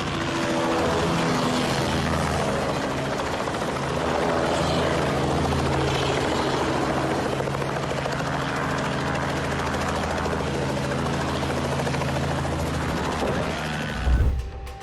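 Helicopter running close by, a steady drone of rotor and engine. Near the end there is a short loud low thud, then the sound cuts off abruptly.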